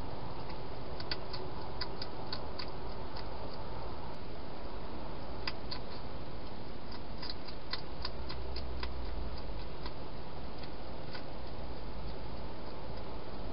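Wild hedgehog chewing food from a bowl: irregular runs of small sharp clicks over a steady hiss, one run in the first few seconds and a denser one in the middle.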